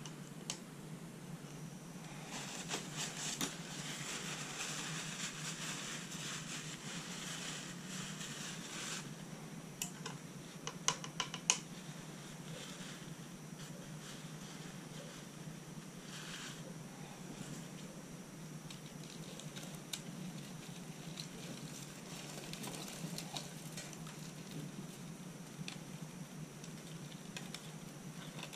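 Quiet hand-handling sounds from a small cup, feeding utensil and tissue: several seconds of rustling and scraping, a quick cluster of sharp clicks, then scattered soft taps and rustles, over a steady low hum.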